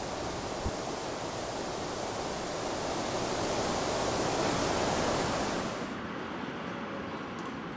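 Steady outdoor rushing noise, with no distinct events, swelling for a couple of seconds in the middle. About six seconds in its high hiss cuts off abruptly, leaving a duller rumble.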